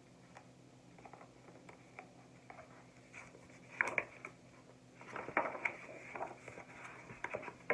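Rustling and light tapping of a picture book being handled and its pages turned, in short clusters a little before the middle and through the second half, over a faint low hum.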